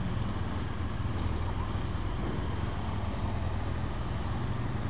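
Motorcycle engine running steadily at low revs as the bike rolls slowly, a low even rumble with no revving.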